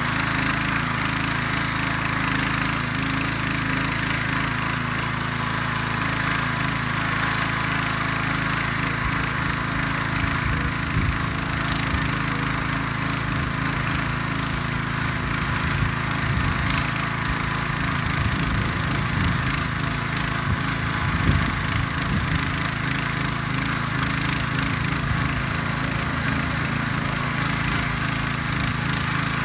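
Ruris DAC 7000 ACC2 motor hoe (rotary tiller) engine running steadily under load as its tines churn through garden soil. One brief louder knock comes a little past two-thirds of the way through.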